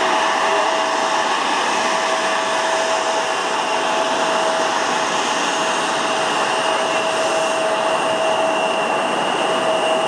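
Embraer E-Jet's twin GE CF34 turbofan engines running at low taxi power: a steady whining rush with a constant mid-pitched tone held throughout.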